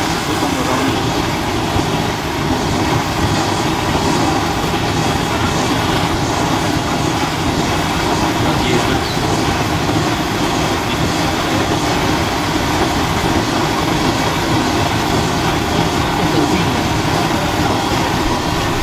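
Motorcycle running at a steady pace while being ridden, a constant dense rumble of engine and road noise.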